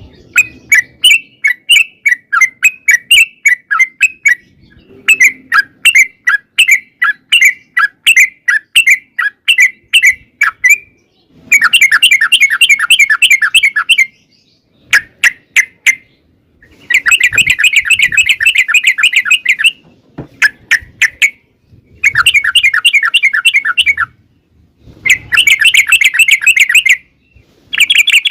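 Yellow-vented bulbul (trucukan) singing long, fast chattering runs of repeated notes, in bouts of a few seconds broken by short pauses.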